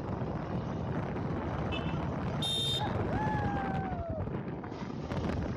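Wind rushing over the microphone and a motorcycle engine running, heard from the pillion seat of a moving bike. About halfway through there is a short high electronic beep, followed by a longer tone that slides down in pitch.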